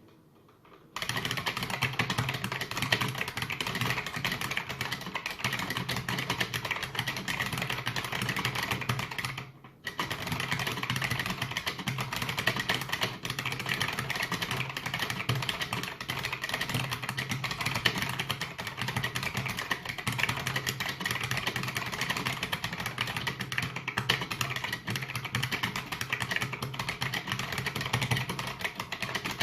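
IBM Model M2 buckling-spring keyboard being typed on fast and continuously, a dense clatter of key clicks. The typing starts about a second in and stops for about half a second about a third of the way through.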